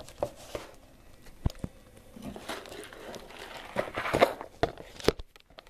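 Close-up handling of small plastic parts inside a Samsung Galaxy S2 being pried and lifted off by hand: scattered light clicks and rustling, with a few sharper clicks near the end.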